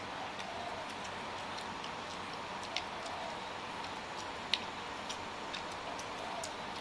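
Eating at the table: a few light, sharp clicks of utensils on a bowl or plate, the clearest about three seconds in and the loudest about four and a half seconds in, over a steady low background hiss.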